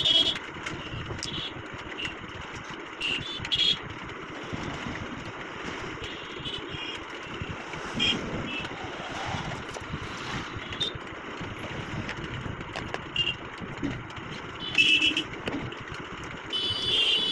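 Steady background road traffic, with several short high-pitched toots scattered through it.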